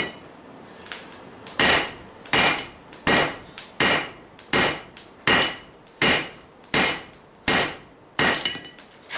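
Hand-forging hammer blows on hot steel over a Vulcan 90-pound cast iron anvil: about ten even strikes, roughly three-quarters of a second apart, starting about a second and a half in, each with a short metallic ring.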